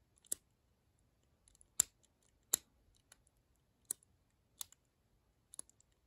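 Number wheels of a brass combination padlock clicking as they are turned one digit at a time by thumb, about six sharp clicks spaced a second or so apart. The shackle is held pulled so each number can be felt for binding, the way the combination is decoded one wheel at a time.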